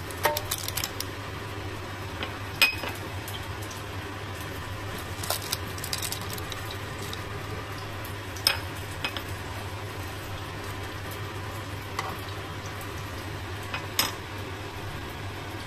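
Hot glazed chicken wings in an air fryer basket sizzling softly, over a low steady hum. A metal utensil clinks sharply against the basket every few seconds, loudest about two and a half seconds in.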